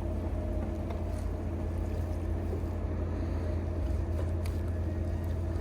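Steady low engine hum, like a boat engine idling in the harbour, with a few faint ticks over it.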